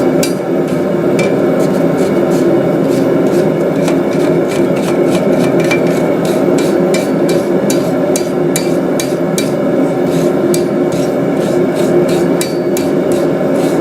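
Hammer blows ringing on an anvil, about two a second, as scale is knocked off a 3/8-inch square steel hook. A steady forge rush runs underneath.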